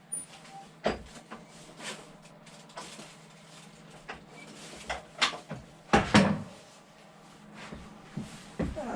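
A series of irregular sharp knocks and clunks of metal parts and tools being handled, loudest about five to six seconds in, over a steady low hum.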